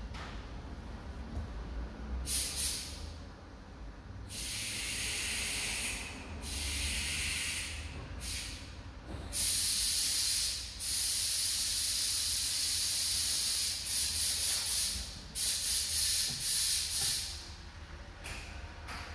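Repeated bursts of loud hissing, like a jet of air, each lasting from under a second to about three seconds and starting and stopping abruptly, with a run of short quick pulses near the end.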